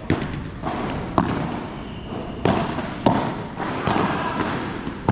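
Padel rally: a ball struck by padel rackets and bouncing on the court, heard as a series of sharp knocks about a second apart.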